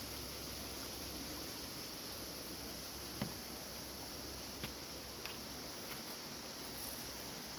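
Steady soft hiss of moving air, with a few faint clicks.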